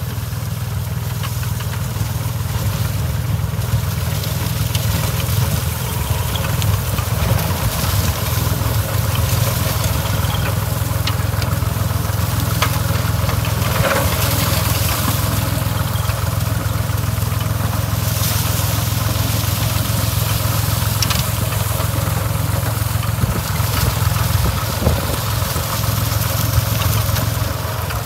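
Massey Ferguson tractor's diesel engine running steadily under load, driving an inter-row rotovator that churns the soil. A few sharp ticks stand out above the steady hum.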